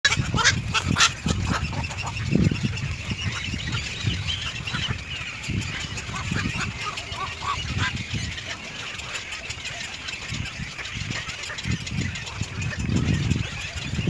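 Bird calls over an uneven low rumble, with a few sharp clicks in the first second.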